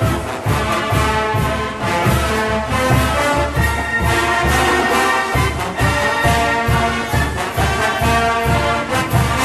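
Marching band music: brass playing over a steady drum beat of about two strokes a second.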